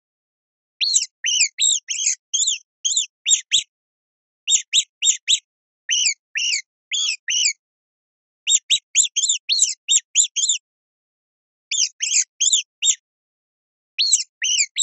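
Mouse squeaking: short high squeaks, about four or five a second, in runs of several, with pauses of about a second between runs.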